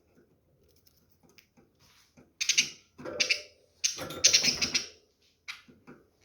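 Pet budgerigars calling in three loud, harsh bursts between about two and five seconds in, followed by a couple of short chirps near the end.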